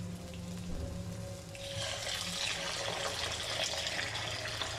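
Water poured in a steady stream into a karahi of fried cumin rice, the splashing starting about a second and a half in and continuing.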